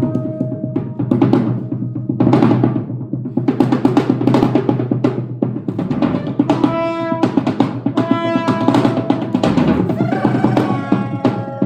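Improvised percussion and trombone: a dense, rapid flurry of drum and percussion strokes, with held trombone notes entering about halfway through and again near the end.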